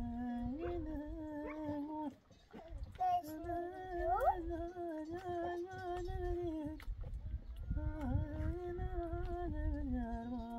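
A person humming a slow tune in long held notes, breaking off briefly about two seconds in, with a low rumble underneath.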